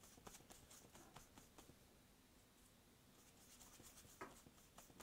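Faint, scratchy swishes of a paintbrush working acrylic paint on a paper-plate palette, a quick run of short strokes that comes thicker near the end.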